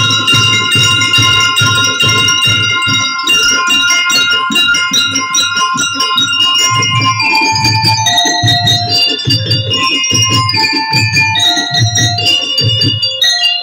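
Drum and lyre band playing: glockenspiels ring out a melody over a steady bass drum beat and snare drumming. Near the end the drums drop out and the bells carry on alone.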